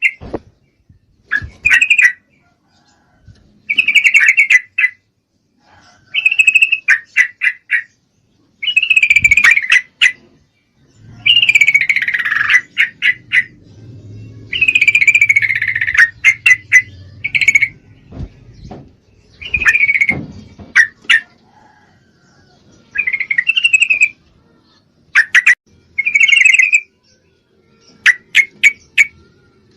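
Yellow-vented bulbul (trucukan) calling, given as a female in breeding condition calling a male: bouts of quick, bubbling chattering phrases, each about a second long and repeated every couple of seconds, some sliding down in pitch.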